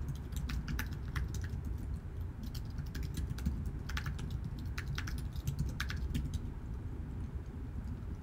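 Typing on a computer keyboard: a run of quick, irregular key clicks that stops about six seconds in, over a steady low hum.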